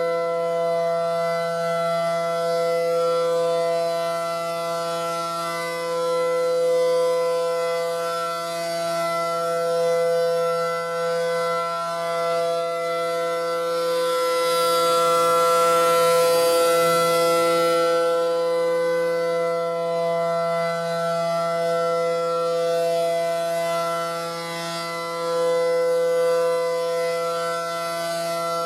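ACA Allertor 125 tornado siren sounding its steady alert signal: one held, unchanging pitch that swells and fades in loudness every nine seconds or so as the siren rotates.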